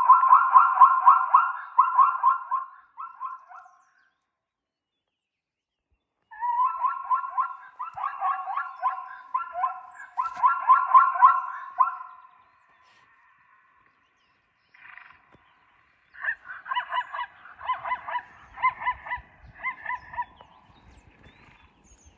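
Zebra barking calls: rapid, repeated yelping honks in three bouts, each a few seconds long, with short silences between. This is the call used to draw in an aggressive zebra stallion protecting his herd.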